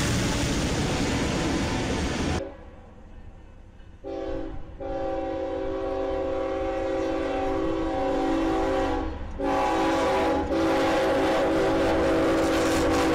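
A freight train's locomotives rumbling past close by, cut off abruptly after about two seconds. Then a Union Pacific locomotive's multi-chime air horn sounds a steady chord in several blasts as the train approaches: a short one, a long one, another short one, then a long one held.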